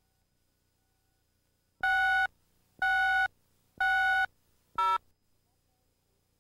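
Countdown beeps on a videotape commercial slate: three identical electronic tones, each about half a second long and a second apart, then a shorter blip at a different pitch. Near silence around them.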